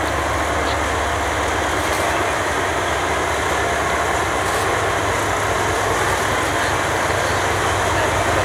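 Norfolk Southern diesel locomotive running steadily as it creeps past at low speed, a continuous low engine rumble.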